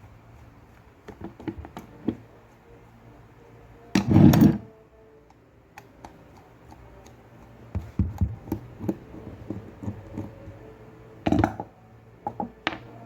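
Electric fan parts being handled during disassembly: scattered light knocks and clicks of parts, with a louder clatter lasting about half a second some four seconds in and a shorter one near eleven seconds.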